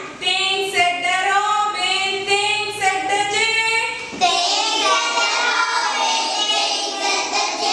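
Young children singing a poem set to a simple tune together, holding some notes for about a second.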